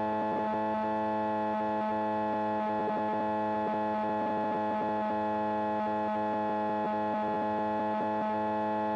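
Light-sport aircraft's Rotax 912 engine and propeller running steadily in cruise, heard in the cockpit as an even, unchanging hum of several tones.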